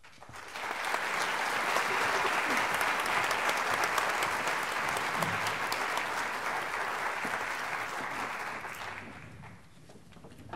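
Audience applauding, rising in about half a second, holding steady, then dying away about nine seconds in.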